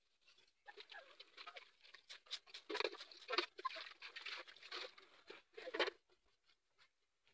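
Hands scrubbing a blackened aluminium cooking pot (sufuria): a dense run of scratchy rubbing strokes with scattered small knocks, starting about a second in and dying away near six seconds.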